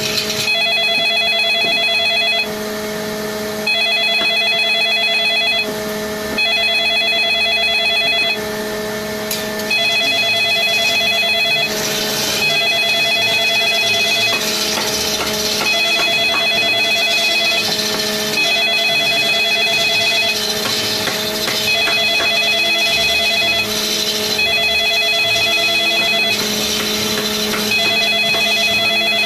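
A telephone ringing with an electronic trill, in repeated bursts of about two seconds with short breaks between them. Under it runs the steady hum of an electric wood lathe, with the scraping of a tool on a large wooden cylinder.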